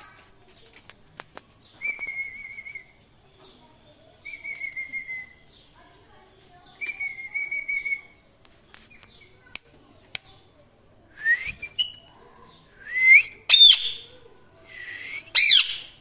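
Indian ringneck parakeets calling: three warbling whistles held at one pitch, then louder rising calls and two sharp, piercing shrieks near the end.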